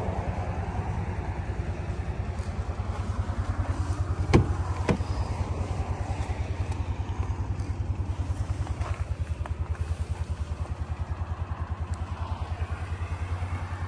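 Ford F-250's 6.7-litre Power Stroke V8 diesel idling with a steady, rapid low throb. About four seconds in, two sharp clicks half a second apart as the driver's door is unlatched and swung open.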